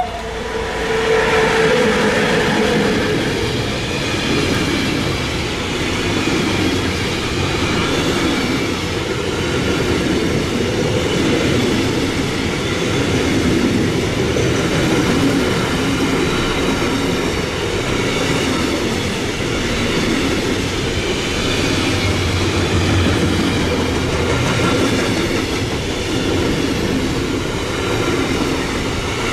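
A long container freight train hauled by an electric locomotive passing close by: the locomotive goes past about a second in, then the wagons' wheels roll by on the rails with a steady loud rolling noise and clatter.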